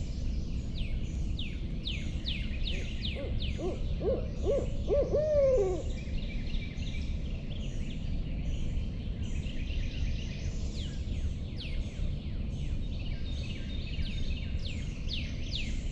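Barred-owl-style hooting: a run of about five hoots, the last one longer, rising and then falling away. A steady chorus of quick, high falling chirps goes on throughout.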